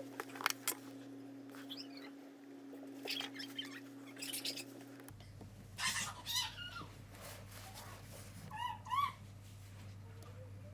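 Bird chirping in short bursts with a quick up-and-down pitch, three close chirps near the end, over a steady low hum and a few light clicks in the first second.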